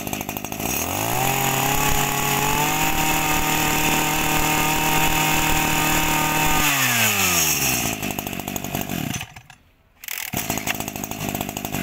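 Small two-stroke brush-cutter engine revving up from idle about a second in and held at high speed for about five seconds. It then drops back to idle and is switched off about nine seconds in. About a second later a rough, uneven mechanical sound starts again.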